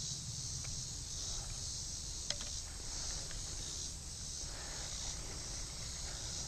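Steady chorus of insects buzzing high, pulsing slowly, over a low rumble, with a single sharp click about two seconds in.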